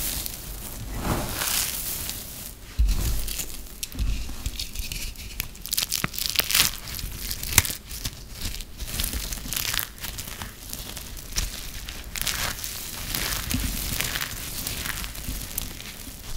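Balls of dried, crumbly grated soap being crushed and crumbled between the fingers, giving a dense, irregular run of crisp crackles and crunches.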